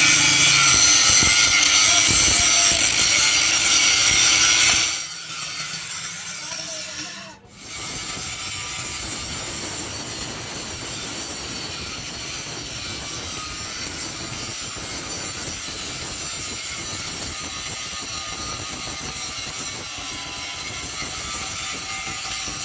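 Handheld electric angle grinder with its abrasive disc grinding down fresh weld beads on a steel rear axle housing, dressing the repair flush. Very loud for the first five seconds, then steadier and quieter after a brief drop about seven seconds in.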